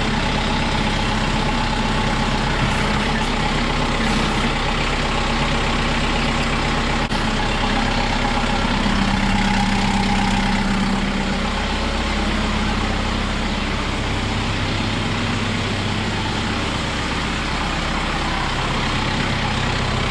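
Kubota M6060 tractor's diesel engine idling steadily, its tone shifting slightly a little under halfway through.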